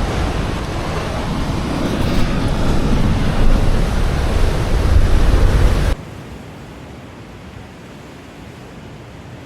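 Loud wind rumbling on the microphone, mixed with the rush of sea surf. About six seconds in it cuts off abruptly to a quieter, steady hiss.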